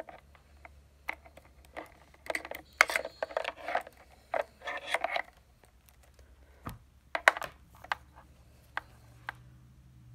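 Handling noise of a power pack's mains cord being unwound and its plastic plug knocking about: irregular rustles and sharp clicks, busiest in the first half, with a few single clicks near the end over a faint low hum.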